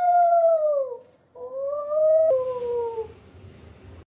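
Conch shell (shankha) blown in two long notes. The first holds a steady pitch and sags away about a second in. The second starts a moment later, drops in pitch partway through and fades out.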